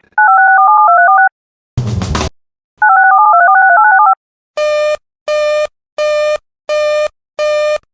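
Emergency alert broadcast tones. Two loud warbling digital data bursts, each about a second long, with a brief crash of static between them. Then five short, evenly spaced electronic beeps, about one every 0.6 s, and the start of another at the very end.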